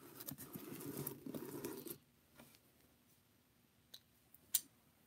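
Cardboard shipping box being opened: packing tape tearing and the cardboard flap scraping and rustling for about two seconds. Then near quiet, broken by a couple of faint clicks.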